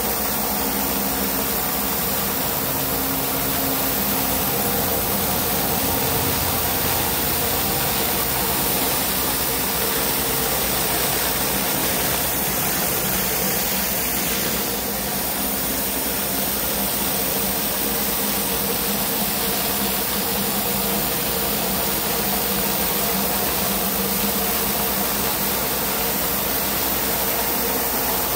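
Pressure washer engine running steadily, with the hiss of water jetting from a surface cleaner onto concrete.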